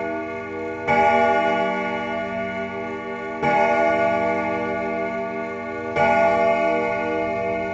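A deep bell tolling slowly, struck about every two and a half seconds, each stroke ringing on until the next.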